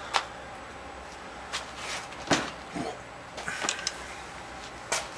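Handling noises: a few separate knocks and clunks, the loudest about two seconds in, then a short rattling clatter a little later.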